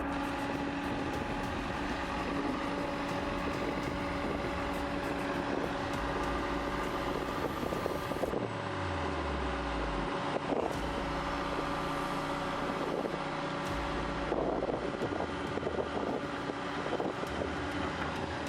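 Diesel engines of a bulldozer and an excavator running steadily, with a few scattered clanks. About halfway through, a low engine tone drops in pitch over a couple of seconds.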